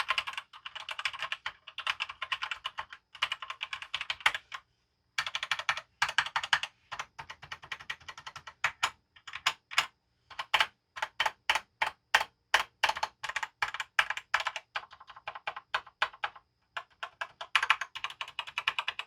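Fast typing on a full-size Velocifier VM02WS mechanical keyboard with TTC red linear switches and ABS keycaps: rapid runs of key clicks and clacks, broken by a couple of short pauses.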